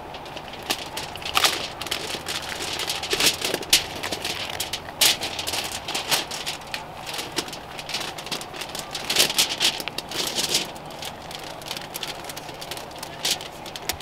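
Parchment paper and aluminium foil crinkling and rustling with many quick, irregular crackles as a roll of puff pastry is unrolled on its paper backing.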